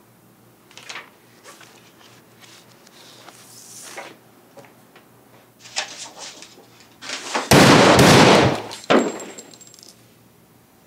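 One loud pistol shot about seven and a half seconds in, followed about a second later by a shorter thud. Before it, only faint small clicks and rustles.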